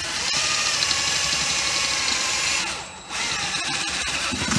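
Electric drill running at speed in two runs, with a short let-off about three seconds in.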